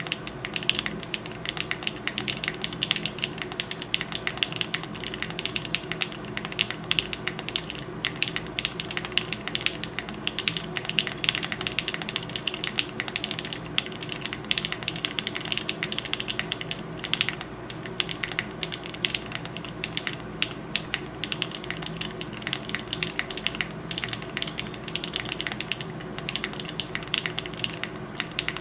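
Continuous typing on a plateless custom mechanical keyboard (7V by gok) with lubed Tecsee Zaku switches and GMK keycaps: a steady stream of rapid key clacks with occasional louder strokes.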